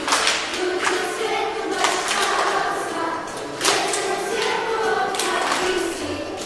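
Song played for a dance, with a group of voices singing together and occasional sharp percussive hits.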